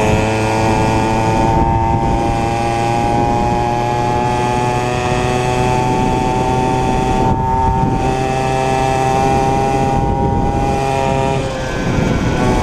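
49cc two-stroke mini cross engine running at high, steady revs under way, its pitch creeping slowly upward. About eleven and a half seconds in, the throttle is eased and the revs drop briefly before the engine picks up again.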